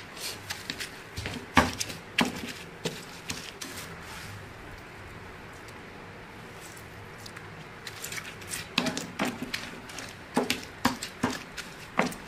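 Stone pestle (ulekan) knocking and scraping in a stone mortar (cobek) as it mixes whole green chillies and basil for sambal. It comes in two bursts of irregular clicks and knocks, with a pause of several seconds between them.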